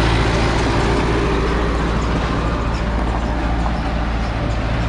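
A motor vehicle's engine running steadily at a constant speed: a low, unchanging hum under road and wind noise.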